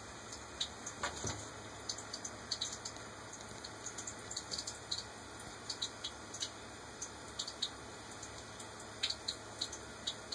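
Faint irregular dripping ticks over a steady low hiss in a small tiled bathroom, with one soft knock about a second in.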